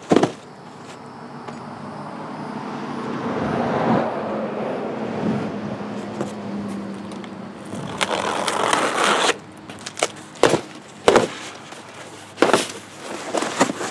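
A car passes by, its sound swelling over the first few seconds and slowly fading. Then packing tape is ripped in one loud tearing stretch, and the cardboard flaps of a large shipping box are pulled open with several sharp knocks of cardboard.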